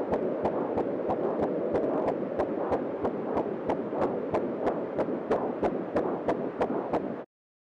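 Closing soundtrack: a steady fast ticking, about four ticks a second, over a dark throbbing drone. It cuts off suddenly a little past seven seconds in.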